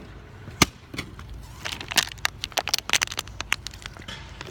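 Phone handling noise: an irregular run of sharp clicks and knocks as the phone rubs and bumps against a cotton shirt, busiest in the middle.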